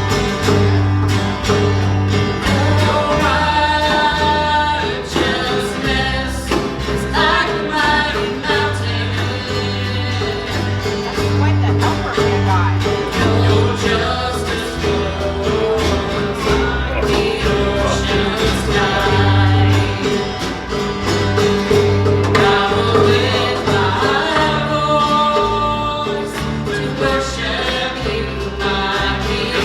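Church worship band playing a gospel song with voices singing over a steady bass line.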